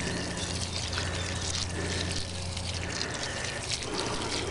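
Water pouring steadily from a plastic watering can onto the soil of a planting hole, soaking in.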